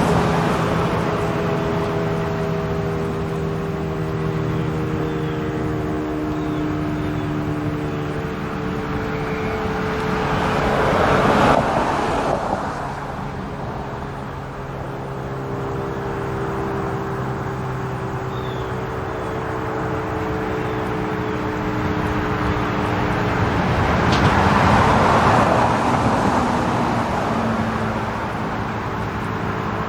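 Federal Signal RSH-10A Thunderbeam outdoor warning siren sounding a steady chord of several tones. It swells louder twice, about eleven and twenty-five seconds in, as the rotating horn sweeps around.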